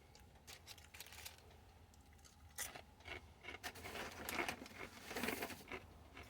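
Close-up crunching and chewing of a toasted sandwich's crisp bread: irregular crackly crunches that grow louder and denser from about two and a half seconds in.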